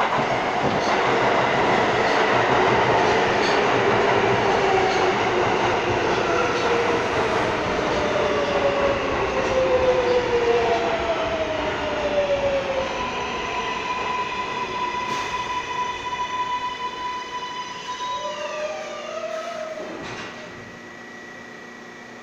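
An R143 New York subway train pulls into the station and brakes to a stop: loud wheel-on-rail noise with the propulsion motors' whine falling in pitch as it slows. Then comes a steady tone, which drops away about twenty seconds in, leaving only a faint steady high hum from the standing train.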